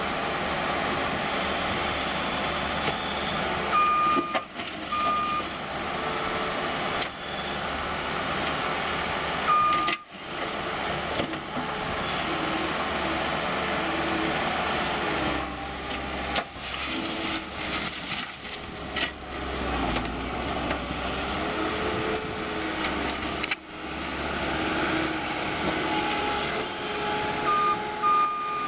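New Holland L230 skid steer loader's diesel engine running under work, with its backup alarm beeping in short runs a few times as the machine reverses.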